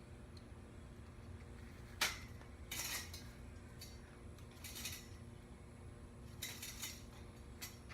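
Metal trampoline springs clinking as they are handled and hooked between the jumping mat's rings and the frame: one sharp clink about two seconds in, then several short clusters of clinks.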